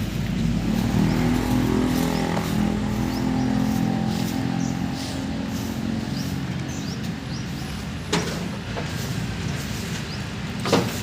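An engine running steadily, with faint bird chirps and two sharp knocks, about eight seconds in and near the end.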